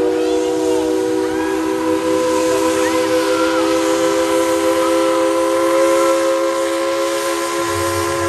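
Steam locomotive's chime whistle blowing one long, continuous blast of several tones sounding together, over the hiss of steam. A low rumble from the locomotive comes in near the end.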